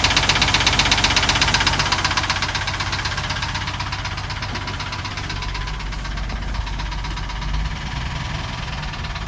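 Car engine running with a rapid, even knocking tick, loudest for the first couple of seconds and then quieter. The owner can't tell whether it is lifter tick or rod knock.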